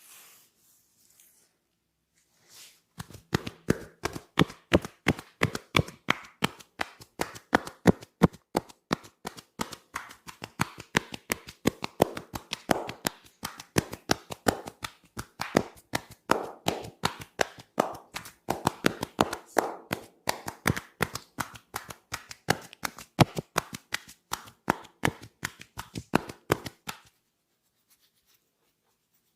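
Percussive massage strokes: hands tapping and slapping on a person's body in a quick, fairly steady rhythm of about four or five strikes a second. The strokes start about three seconds in and stop near the end.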